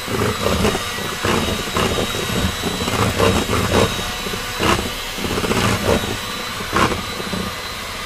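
Electric hand mixer running steadily with a high whine, its beaters whipping a runny custard pie filling in a stainless steel bowl, with irregular knocks as the beaters strike the bowl.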